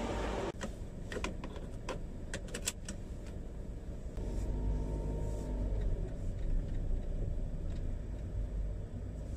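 Inside a car: a run of sharp clicks and clatter in the first few seconds, then the car's engine running with a low rumble.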